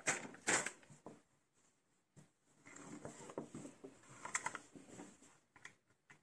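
LEGO bricks and minifigures being handled and set down on a cloth-covered table: light plastic clicks and taps, two just after the start and a cluster around the middle.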